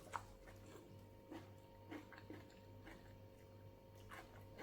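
Faint chewing and mouth sounds, a few soft clicks scattered over a steady low hum.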